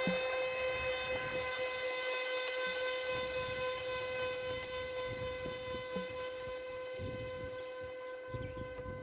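Small electric motor spinning a propeller, whining at one steady pitch with a hiss of air, easing slightly in level.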